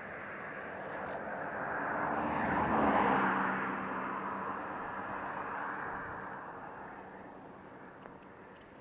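A vehicle passing on the road, its tyre and engine noise swelling to its loudest about three seconds in and then slowly fading away.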